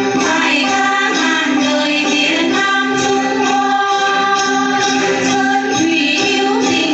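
Hát then ensemble music: a group of women singing together over many plucked đàn tính lutes, with a steady jingling beat.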